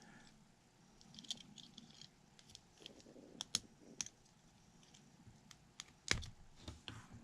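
Small clicks and light scraping of metal and polymer pistol parts being handled as a Glock trigger assembly is taken apart by hand, with a sharper click about six seconds in.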